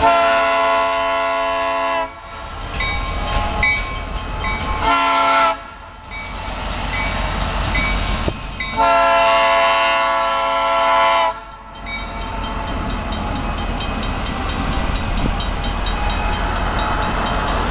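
CN diesel locomotive's horn sounding a long blast, a short one about five seconds in, and another long one around nine seconds in. Between and after the blasts the locomotive and hopper cars rumble past over the rails while a level-crossing bell rings about twice a second.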